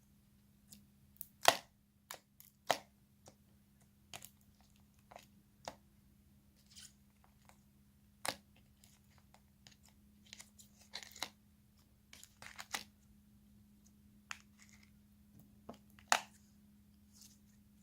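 Slime being squished and pressed by hand, giving irregular sticky clicks, pops and short crackles, over a faint steady hum.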